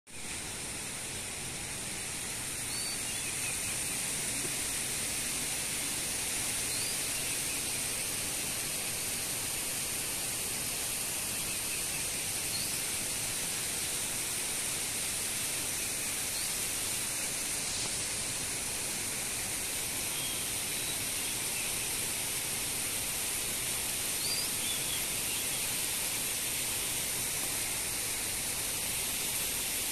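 Steady rushing, hissing noise, with a few faint short high chirps now and then.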